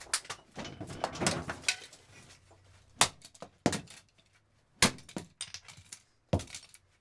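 A hammer striking a plastic Clipsal electrical outlet again and again, with sharp irregular cracks and knocks as the outlet bounces and clatters around between blows.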